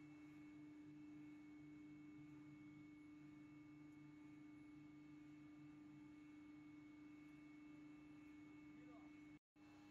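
Near silence: a faint steady low hum with a thin high whine above it, broken by a split-second dropout near the end.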